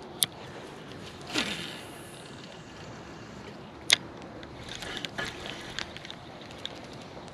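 A cast with a spinning rod and reel: a whoosh that falls in pitch as the line pays out, a sharp click about four seconds in as the bail snaps shut, then a run of small clicks as the reel is cranked. A steady outdoor hiss of wind and water lies under it.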